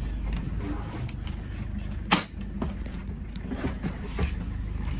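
Knocks and clicks of things being handled, the loudest a sharp knock about two seconds in, over a steady low hum of a running engine.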